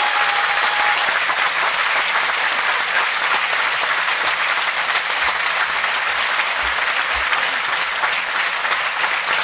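Concert audience applauding steadily. The band's last held note dies away about a second in.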